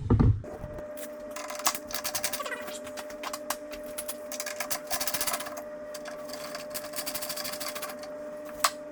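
Small electric motor, likely a power screwdriver driving out the T15 Torx screws, running at a steady pitch with fast clicking that comes and goes. A single sharp click comes near the end.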